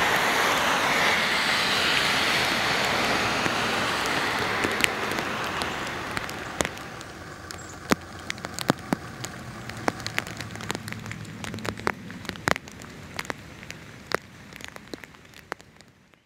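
Rain and wet-road noise: a steady hiss that fades over the first several seconds, leaving scattered sharp drips of rainwater striking surfaces, dying away near the end.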